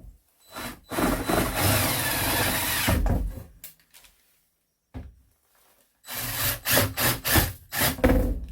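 Power drill running for about two seconds. After a pause comes a quick series of knocks, about three a second.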